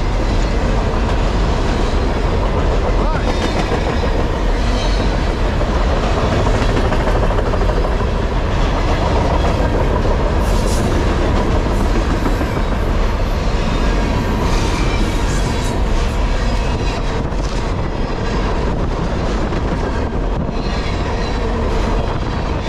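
Freight train of flatcars loaded with open-top containers rolling past at close range: the steady, loud noise of the cars' wheels on the rails.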